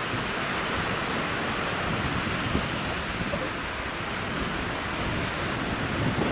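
Small sea waves breaking and washing onto a sandy shore in a steady hiss of surf, with wind rumbling on the microphone.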